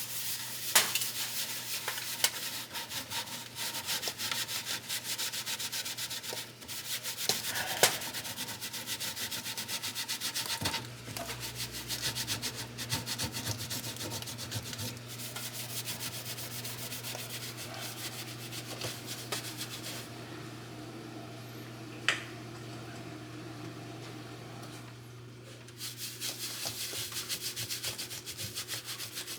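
Rag with a baking-soda paste scrubbed rapidly back and forth over the greasy inside of a range hood, with a few sharp taps; the scrubbing stops for several seconds past the middle, then starts again near the end. A steady low hum sits underneath.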